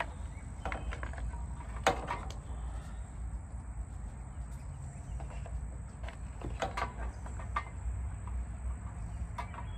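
A few scattered clicks and knocks as the starter cover is handled and fitted back onto a lawn mower's engine, the loudest about two seconds in, over a steady low rumble.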